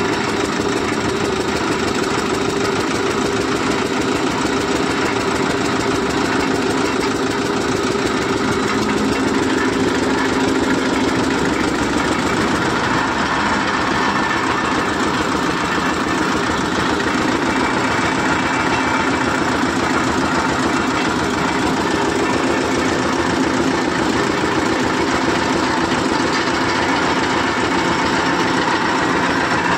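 Borewell drilling rig running steadily, its engine and hydraulics driving the drill in the bore, with a fast knocking rhythm; the pitch of the machine shifts about twelve seconds in.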